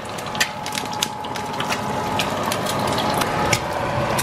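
Egg frying in hot oil in a non-stick pan: a steady sizzle full of rapid crackles and pops of spitting oil.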